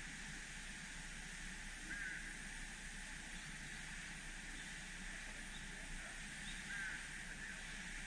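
Steady rush of falling water from a waterfall. A short animal call sounds twice over it, about two seconds in and near the end.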